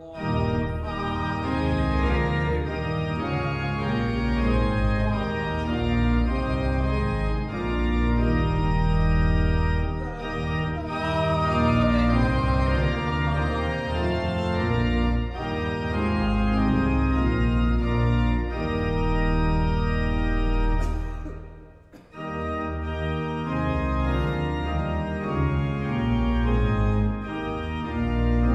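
Church organ playing slow, held chords with a strong bass. The music breaks off briefly about 22 seconds in, then resumes.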